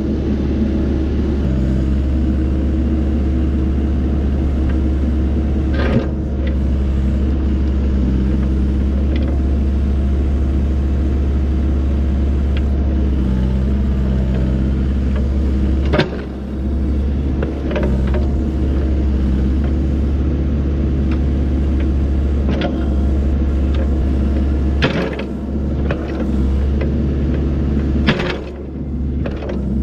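Excavator's diesel engine running steadily under load, with about half a dozen sharp knocks spaced through it as the machine handles rocks, the engine dipping briefly after some of them.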